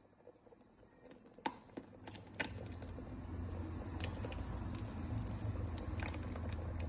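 Pot of soup stock cooking, with scattered sharp pops and clicks. A steady low rumble comes in about two and a half seconds in.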